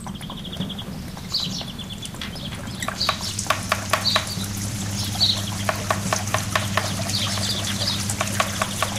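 Opening of a house music track made of ambient sound effects: birds chirping, with small clicks that grow busier after a few seconds, over a steady low hum.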